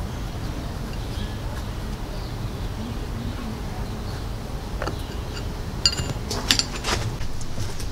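A motorcycle's stock mirror being unscrewed by hand from its threaded handlebar mount and lifted off. A few light clicks and a short metallic clink come near the end, over a steady low background rumble.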